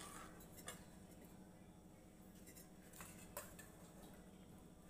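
Near silence, with a few faint clicks of a steel ladle knocking against a steel kadai as a thick milky curry is stirred.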